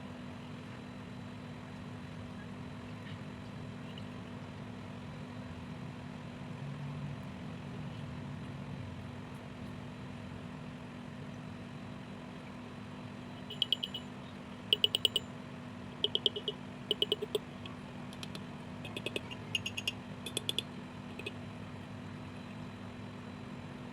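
A Denso electric disc horn, fitted as a replacement on a Yamaha Mio M3 scooter, sounds in a run of short beeps, several quick toots starting about halfway through and lasting about seven seconds. A low steady hum continues underneath.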